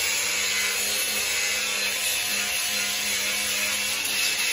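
Makita angle grinder running a Manpa Multi-Cutter belt attachment with a 4-inch flexible rubber-backed Velcro sanding pad, sanding soaking-wet wood. It gives a steady motor hum under the even hiss of the sandpaper rubbing on the wood.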